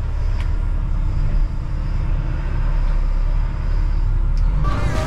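Reach stacker's diesel engine running with a steady low rumble, heard from inside the operator's cab. Background music comes in near the end.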